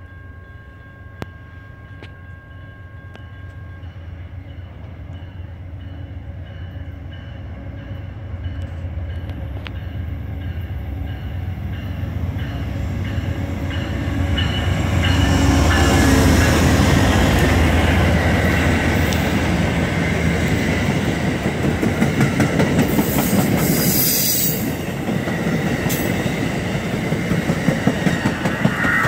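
Amtrak passenger train led by a GE Genesis P42DC diesel locomotive, approaching and passing at speed. The engine's low rumble grows louder and peaks about halfway through. The coaches then roll by with a regular clickety-clack of wheels over rail joints, and a brief high hiss comes near the end.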